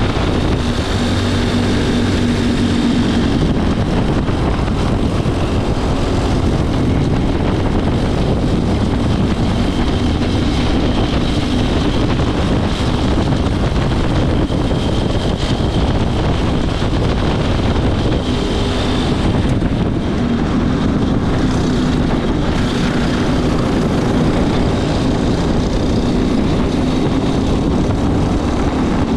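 Racing go-kart engine running hard, heard from on board the kart, its pitch rising and falling as the kart accelerates and slows around the track.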